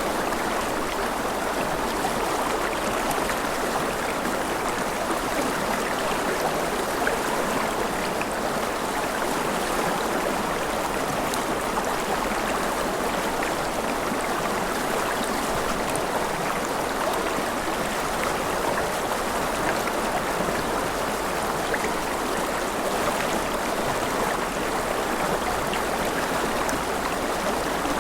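Forest river flowing steadily over rocks, an even rushing of water with small splashes.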